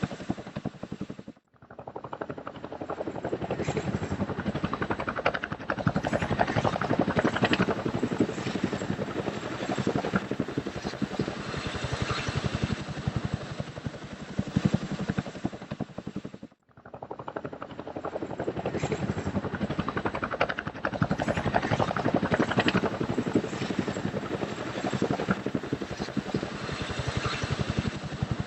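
Helicopter rotor and engine noise heard on board: a steady, fast chop of the blades over engine noise. It cuts out briefly twice, about a second and a half in and again about 16 seconds in, then fades back.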